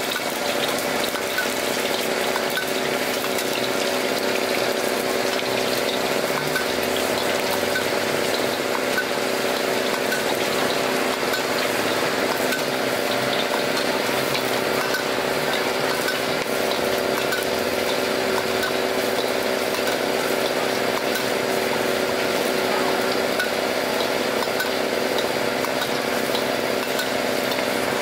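Chicken nuggets deep-frying in hot oil in a wok, sizzling steadily, with the occasional scrape and clink of a metal spatula against the wok, over a steady mechanical hum.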